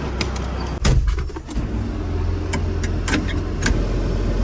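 A vehicle engine idling steadily, with a loud clunk about a second in and several sharp clicks after it.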